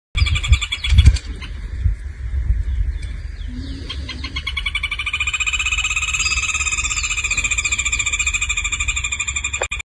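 An animal calling in a fast pulsing trill. It builds over the first few seconds and then holds steady until it cuts off. Under it runs a low rumble on the microphone, with a loud thump about a second in.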